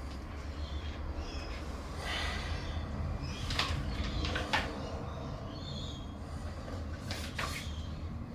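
Handling noises: a few light knocks and clicks with some rustling over a steady low hum.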